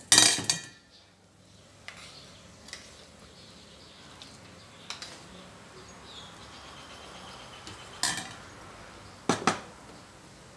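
Metal ladle clinking against an aluminium soup pot: a loud clatter at the start, then a few short, sharp clinks spread through a quiet stretch, two of them louder near the end.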